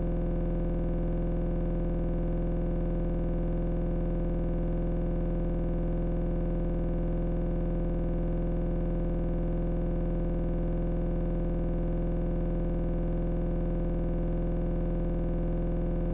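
A loud, steady electronic buzz made of many unchanging tones at once, with no variation in level or pitch. It is a recording fault that replaces the speech, not a sound in the room.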